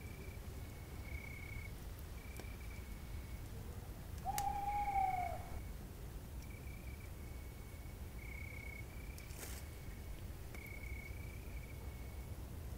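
Night nature ambience: a cricket-like insect chirps in short, even notes at about one a second over a low steady rumble. About four seconds in comes a single call lasting just over a second, rising then falling in pitch, and a couple of faint pops follow.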